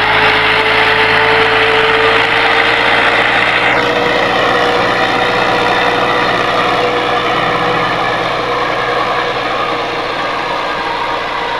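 NH Dabang 85 tractor's diesel engine running steadily under load as it pulls a disc harrow through ploughed soil. A higher note in the engine sound drops in pitch about four seconds in, and the sound grows a little quieter toward the end as the tractor draws away.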